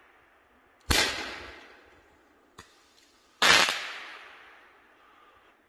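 Roman candle firing: two loud shots about two and a half seconds apart, each trailing off over a second or so, with a faint click between them.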